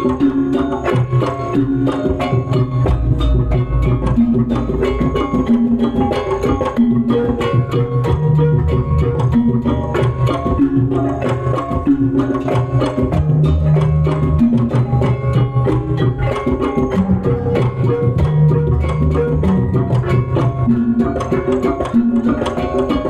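Loud traditional percussion music with drums and a fast, dense beat of struck hits over held pitched notes, played through a stage sound system during a sound check.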